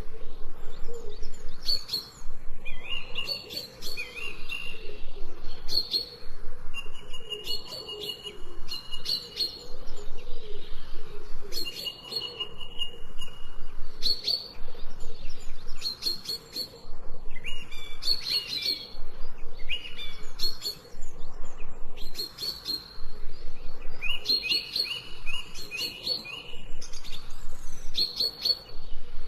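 Songbirds chirping and calling, short high chirps and brief whistled notes coming in clusters every second or two.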